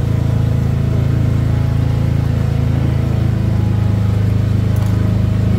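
Small motorboat's engine running at a steady speed, a low even drone that grows a little stronger about halfway through.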